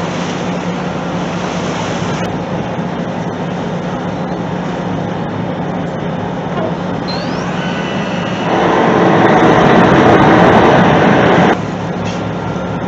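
Boat engines running with a steady low drone. About eight and a half seconds in, a louder rushing noise comes in for some three seconds and then cuts off abruptly.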